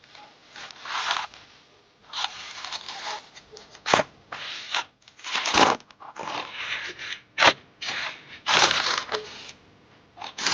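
Rustling and shifting of a patient and cloth on a chiropractic treatment table during an adjustment, in repeated short bouts. Three sharp cracks come through the middle.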